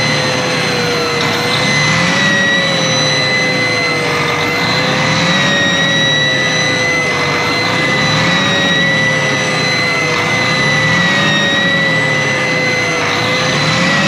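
John Deere 7230R's six-cylinder diesel engine running with a steady, high-pitched turbo whistle over the engine note, its pitch wavering slightly. The mechanic traces the whistle to an exhaust leak at the number four exhaust port on the manifold, which he thinks is the likely cause rather than a failed turbo.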